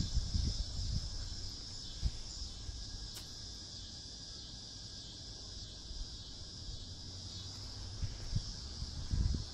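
Steady high-pitched chorus of insects. Low bumps and rustling from the camera worn by the cat come at the start and again near the end.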